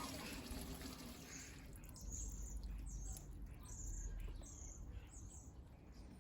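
Washing machine running faintly with a low rumble and water sounds, with a run of short, high chirps from about two seconds in.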